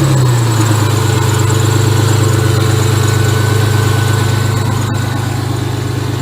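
1999 Isuzu Amigo engine idling steadily with a fast, even pulse.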